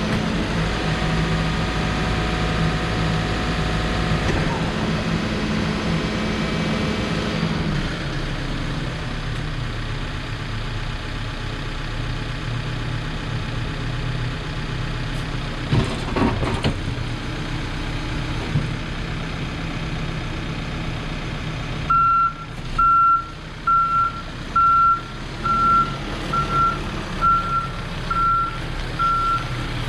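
2016 Case 590 Super N loader backhoe's diesel engine running, settling to a lower speed about eight seconds in, with a couple of knocks midway. About 22 seconds in its reversing alarm starts, sounding steady evenly spaced beeps a little more than once a second.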